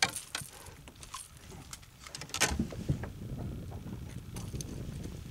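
Clicks, knocks and rattles of a largemouth bass being landed and handled in a boat, the loudest knocks at the start and about two and a half seconds in, over a steady low rumble.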